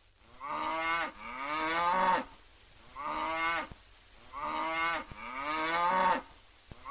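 Cow mooing: a series of about five short moos, each rising in pitch and then dropping off, with brief pauses between them.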